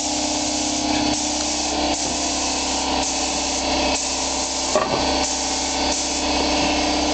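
Paint spray gun hissing in long bursts with short breaks as epoxy primer is sprayed, over the steady hum of a shop exhaust fan.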